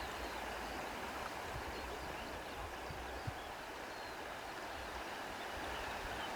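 Steady rush of running water, like a stream.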